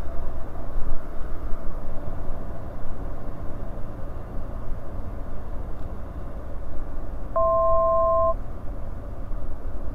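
Steady low drone of a Bristell NG5 light aircraft's engine and airflow in the cockpit. About seven seconds in, a two-tone electronic beep sounds for about a second.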